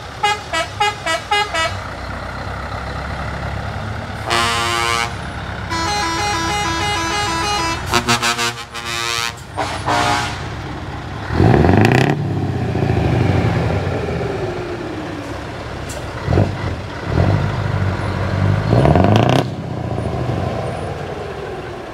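Trucks sounding their horns: short melodic horn tunes and long blasts over the steady running of their engines, followed later by several rising sweeps in pitch as engines rev up.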